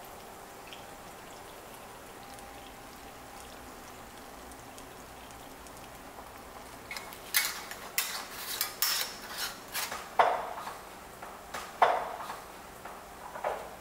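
Glass mason jars and their metal lids clinking and knocking in a quick run of sharp clicks, starting about halfway through, with a few heavier knocks as the filled jars are set down on the countertop.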